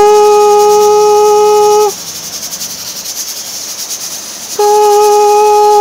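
Pressure cooker on a gas burner hissing steam and letting out two steady, hooting whistle tones like a train whistle, the first about two seconds long and the second starting near the end, over a constant hiss. Pressure has built up in the cooker just before its first full whistle.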